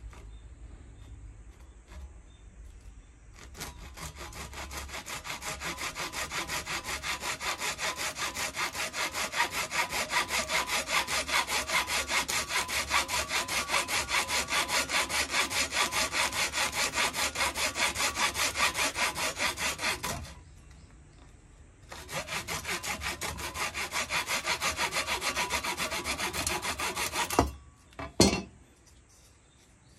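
A hand saw cutting through a thin wooden stick in fast, even back-and-forth strokes. It stops for about two seconds, resumes, and ends with two sharp knocks near the end.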